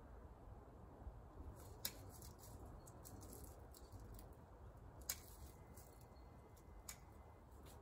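Faint, sharp snips of pruning shears cutting back a young nectarine's winter-killed top shoots: a few single clicks, the clearest about two seconds in, about five seconds in and near the end.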